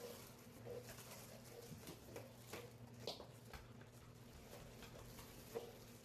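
Near silence: faint scattered taps and rustles of a boxed air purifier and its plastic bag being handled on a wooden floor, over a faint steady hum.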